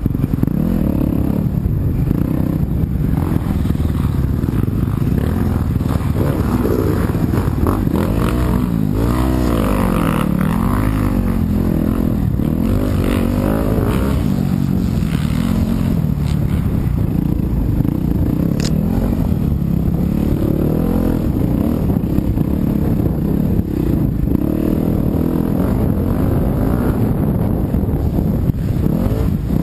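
Yamaha YZ250FX dirt bike's single-cylinder four-stroke engine running hard under race riding, its revs rising and falling continuously.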